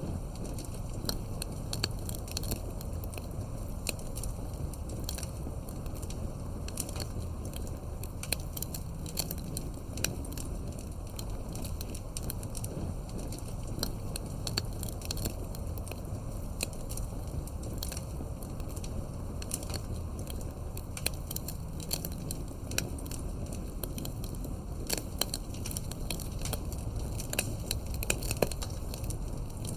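Wood fire burning with a steady low rumble and many irregular sharp crackles and pops.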